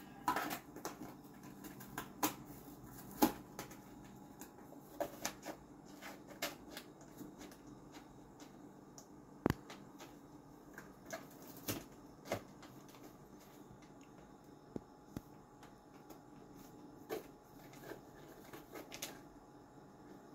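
A cat rummaging with its head inside a cardboard cat-food box, rustling and scraping the cardboard and packaging in irregular small clicks and crinkles.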